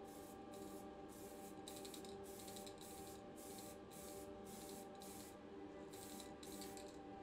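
Aerosol can of black model primer sprayed in short hissing bursts, about two a second, with a brief pause near the end. A steady low hum runs beneath.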